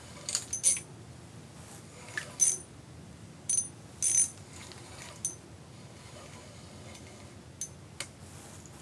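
Ice fishing reel clicking in short metallic bursts while a hooked channel catfish is played on it: about ten quick bursts at irregular intervals, with a cluster near the start and more spread through the rest.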